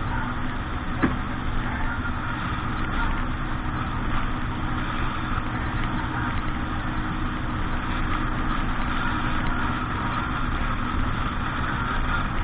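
Boat engine running steadily at a constant speed, with one short click about a second in.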